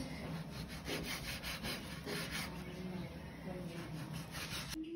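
Repeated scraping strokes, roughly two to three a second and slightly uneven.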